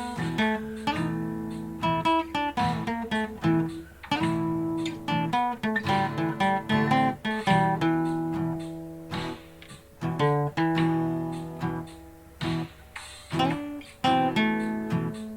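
Solo acoustic guitar playing a blues piece: picked notes and strummed chords with sharp attacks, no singing.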